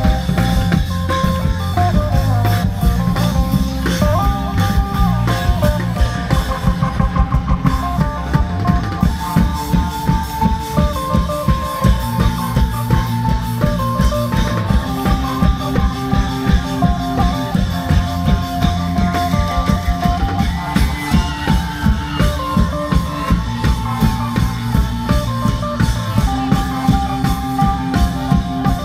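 Isan klong yao long-drum ensemble playing a steady drumbeat, with a melody line carried over the drums.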